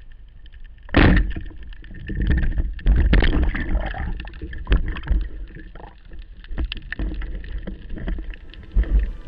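Water splashing and sloshing, beginning with a sudden loud splash about a second in and going on in irregular surges.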